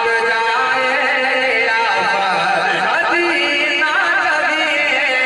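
A man singing a naat, an Urdu devotional song, solo into a microphone in long, wavering, ornamented phrases, his pitch sweeping up in the middle.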